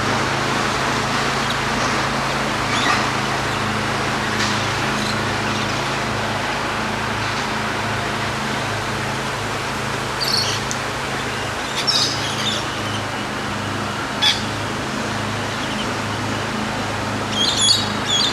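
A few short, high bird chirps, scattered and loudest near the end, over a steady background hiss and low hum.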